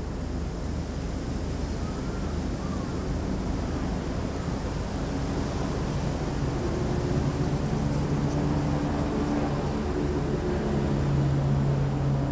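A distant engine drones steadily against outdoor background noise, and grows louder from about halfway through.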